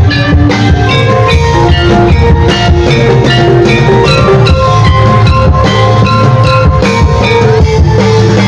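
Barongan troupe music played loud over a sound system: heavy drums and bass under a quick melody of short pitched notes.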